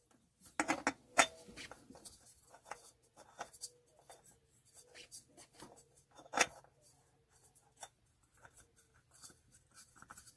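A new spin-on oil filter being handled and threaded onto the engine's filter mount by hand: scattered light clicks, scrapes and rubbing, with a few sharper knocks in the first second or so and the loudest knock about six seconds in.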